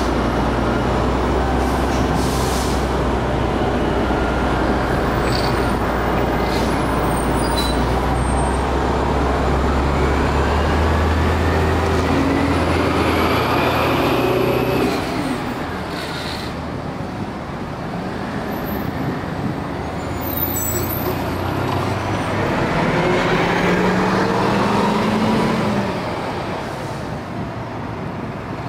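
Diesel city bus, an Orion V, idling at a stop with short air-brake hisses, then its engine revs up in a rising tone as it pulls away past close by. Later a second bus, an RTS, accelerates away with another rising engine note.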